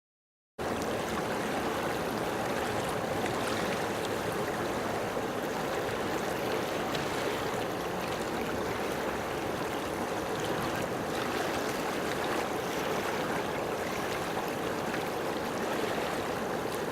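Steady rushing sound of running water, cutting in abruptly about half a second in.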